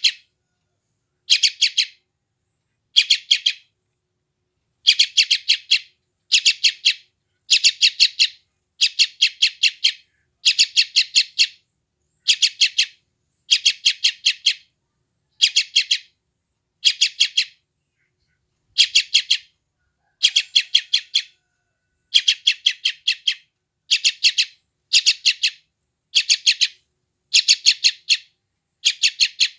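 Young yellow-vented bulbul (trucukan) chattering. It gives short bursts of rapid, scratchy pulsed notes, each about half a second long, again and again in quick runs with brief pauses between them.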